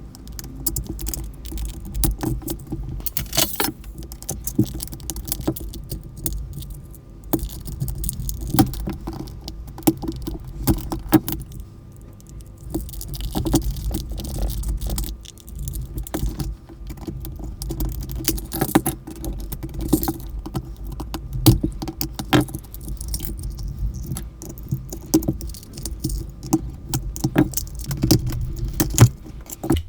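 A cordless telephone's plastic housing and parts being handled and taken apart with small hand tools: scattered clicks, taps and rattles with short stretches of scraping and rustling.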